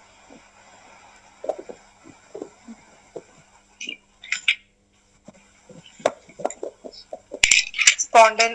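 Faint, indistinct voices with scattered small clicks and knocks, then a louder voice near the end.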